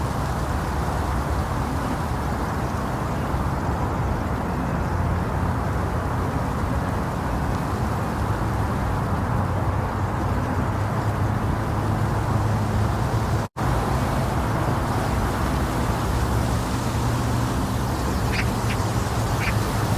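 Steady, muffled white noise with a low rumble, made to simulate the sound of the womb. It cuts out for an instant about two-thirds of the way through.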